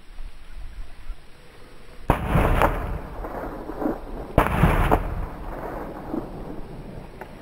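Two gunshots, a little over two seconds apart, each with a rolling echo that dies away within about a second.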